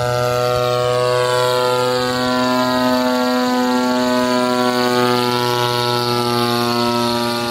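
Single-cylinder nitro glow engine of a large RC plane running steadily at high throttle in flight. It is a loud, even buzz with many overtones, its pitch holding nearly level and drifting only slightly.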